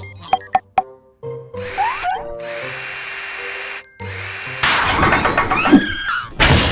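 Cartoon power-drill sound effect: a steady whir for about two seconds, a brief stop, then a louder whir with wavering tones, over light background music.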